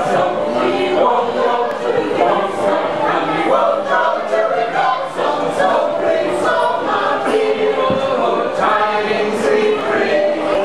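A small choir of men and women singing a Christmas carol unaccompanied, several voices together.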